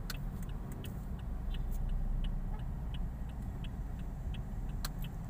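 Turn-signal indicator clicking steadily, about two to three ticks a second, over the low rumble of a car's engine heard from inside the cabin.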